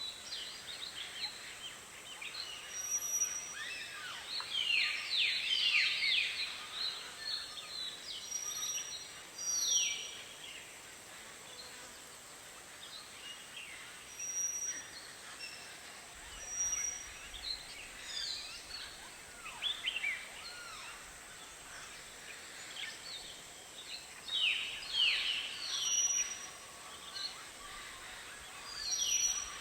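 A flock of birds calling at a watering hole: dense clusters of quick, downward-sliding chirps that swell and fade in bursts, with short, high, steady whistled notes here and there and a faint steady high hiss behind.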